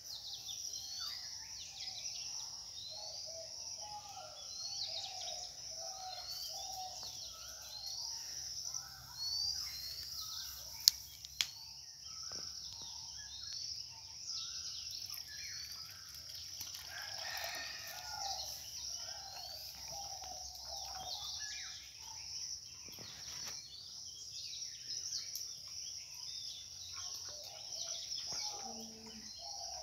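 Birds calling all through, with repeated high chirps over other calls. Two sharp clicks come close together about eleven seconds in.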